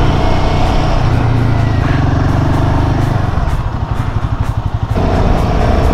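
Royal Enfield Himalayan 450's single-cylinder engine running steadily while riding. About three and a half seconds in the throttle eases and the note drops to a softer, pulsing beat, then it steadies again near the end.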